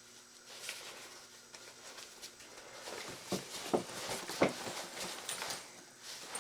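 Handling a handbag while adjusting its straps: light rustling, then a cluster of short sharp clicks and knocks in the second half.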